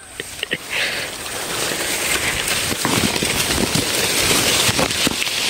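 Durian leaves and branches rustling and brushing close against the microphone, a dense crackling rustle as the filmer pushes in among the foliage.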